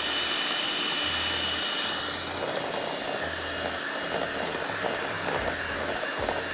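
Electric hand mixer running steadily, its beaters whipping a thin instant-coffee and sugar mixture in a glass bowl to make dalgona coffee froth.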